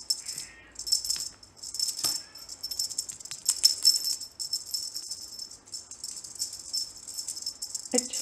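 A small rattle or jingling toy shaken in quick, uneven bursts, giving a bright, high shaking sound with only short pauses between.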